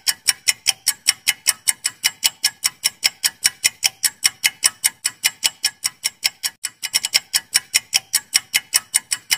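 Clock-ticking sound effect counting down a quiz timer: fast, even ticks, about five a second.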